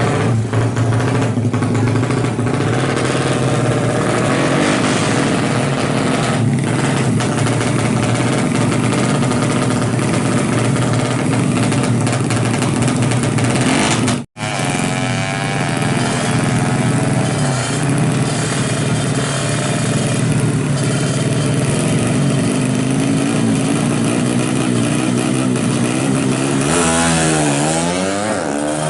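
Honda Astrea drag bike's single-cylinder four-stroke engine running steadily through its rusty exhaust, which is making an odd sound. The sound breaks off briefly about halfway, and near the end the revs rise and fall in a quick blip.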